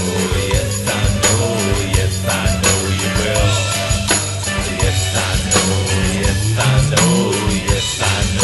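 Background music from a song, with a steady beat and bass, in a stretch without sung words.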